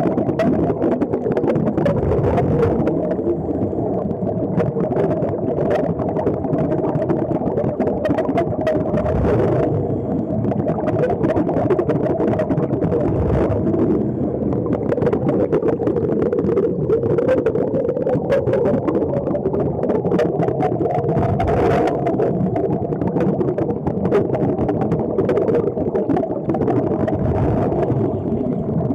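Steady, muffled mechanical drone heard underwater, with scattered faint clicks and bubbling from the diving helmets.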